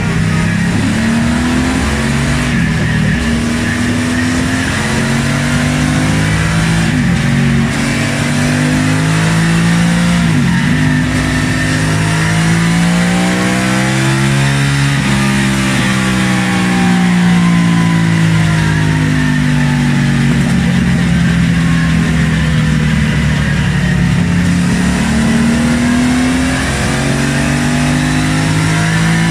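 Aprilia Caponord 1200's 1197 cc 90-degree V-twin with its stock exhaust, running steadily on a dynamometer. Its pitch drifts slowly up and down.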